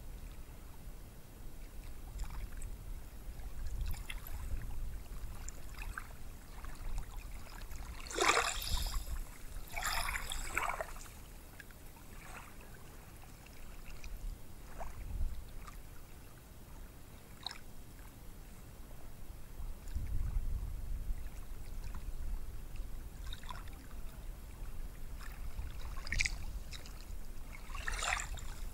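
Ocean surf: small waves breaking and washing up a sandy beach, with a low rumble that swells and fades. Louder splashing washes come about eight to eleven seconds in and again near the end.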